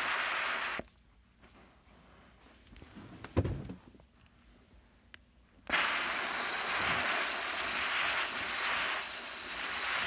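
McCulloch MC1385 canister steam cleaner jetting steam through a cloth-covered floor tool with a steady hiss. The hiss cuts off abruptly about a second in and starts again just as abruptly past the middle; a single dull knock falls in the quiet gap.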